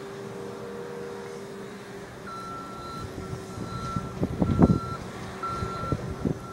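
A vehicle's back-up alarm beeps in a steady high tone, starting about two seconds in, over a low engine hum. A cluster of loud knocks and clatter comes a little past the middle.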